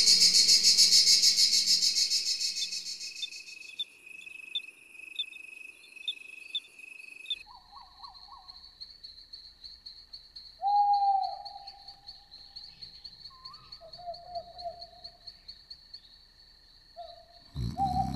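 Cricket chirping: fast high pulses at first, then from about seven seconds a steady high trill, with a few short lower animal calls scattered between. It starts under a loud shimmering music that fades out over the first few seconds, and music comes back in near the end.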